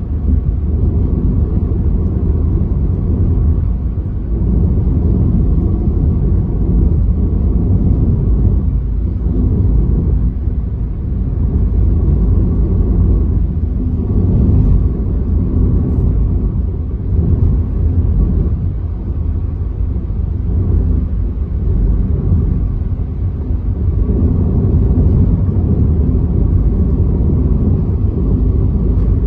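Steady low rumble of a car being driven, heard from inside the cabin: tyre and road noise with the engine underneath, swelling and easing slightly.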